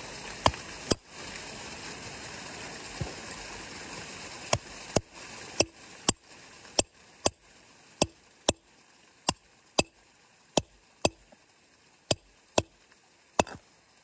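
Hammer striking a chisel set on a large stone ammonite nodule to split it open: about seventeen sharp knocks, mostly in pairs about half a second apart. A steady rushing noise underneath drops away about halfway through.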